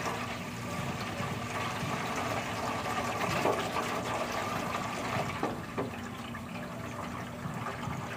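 Water running from a garden hose into a plastic tub, a steady rush as the tub fills.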